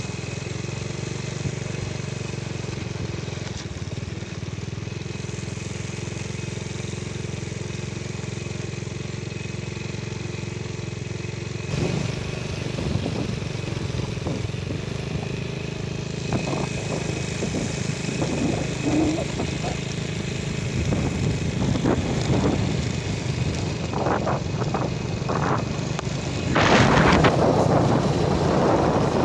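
Small motorcycle engine running steadily while riding, with knocks and rumble from the road. About twenty-seven seconds in, a louder rushing noise takes over.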